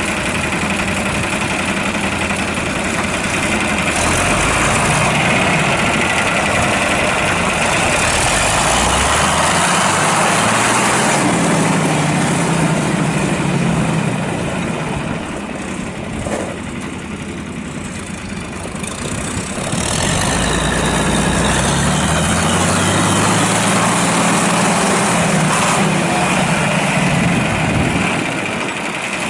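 John Deere 4020's six-cylinder diesel engine running, slowing down and getting quieter about halfway through, then speeding back up after several seconds and easing off again near the end.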